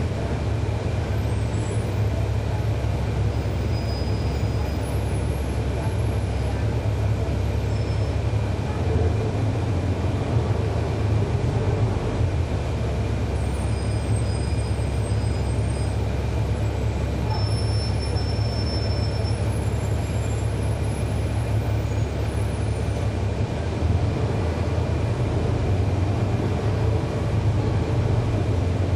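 2011 NABI 40-SFW transit bus's Cummins ISL9 diesel engine running, heard from inside the bus: a steady low rumble with a faint high whine.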